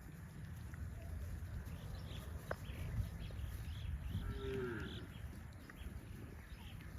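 Cattle being moved along, with one short, falling call from a cow a little past the middle. Small birds chirp repeatedly over a steady low rumble.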